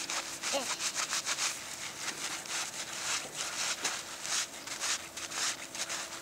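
Gloved hands scraping and rubbing a block of packed snow to shape it, a quick run of short scratchy strokes, several a second.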